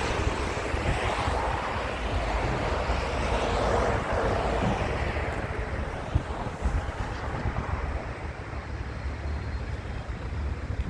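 Wind rumbling on the microphone under a broad rushing noise that swells about four seconds in and then fades.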